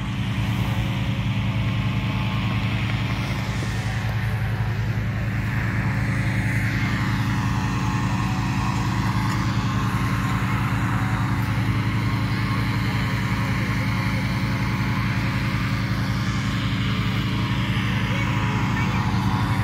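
An engine running steadily at a constant speed, a loud even drone with a fine regular pulse.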